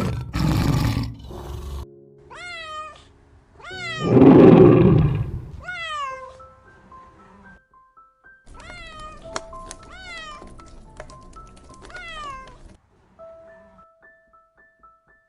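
A kitten meowing again and again, high cries that rise and then fall, over background music with plain held notes. Two loud, noisy bursts come at the start and about four seconds in.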